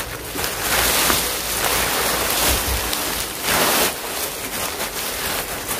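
Dry oak leaf litter and leaf mould rustling and crackling as it is scooped up and put into a container, with a few louder surges.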